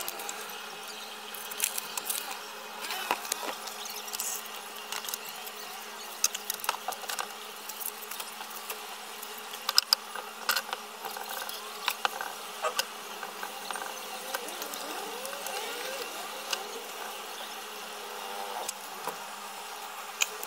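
Hands pulling and scraping soft modelling clay out of a plaster mold: irregular soft clicks, scrapes and squelches, over a steady low hum.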